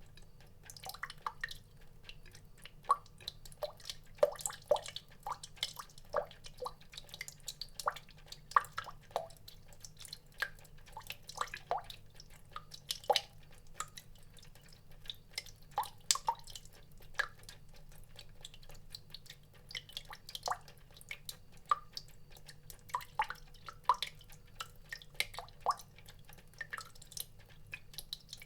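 Water dripping: single drops land irregularly, a few a second, each a short plink with a brief pitched ring, some much louder than others. A faint steady low hum runs underneath.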